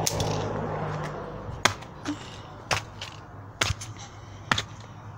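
Sharp snaps, about six of them, roughly one a second, over a faint low hum that fades in the first second.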